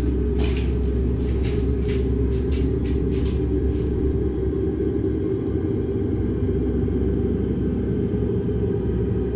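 A steady low rumble, with a few faint clicks in the first four seconds.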